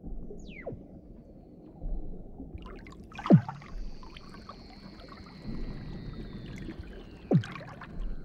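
Weddell seals calling underwater. Three quick chirps each sweep steeply down in pitch, the loudest about three seconds in, and a long high whistle falls slowly in pitch through the second half.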